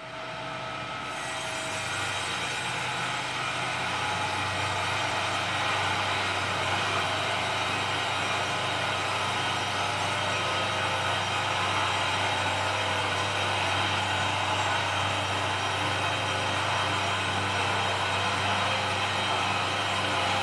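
Zenz Z 140 S mobile band sawmill running: a steady machine hum with a hiss over it, growing louder over the first few seconds and then holding level.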